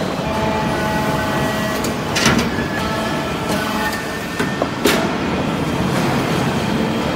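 Y83-500 hydraulic briquetting press running: a steady mechanical drone with faint whining tones, broken by two sharp clacks about two and five seconds in.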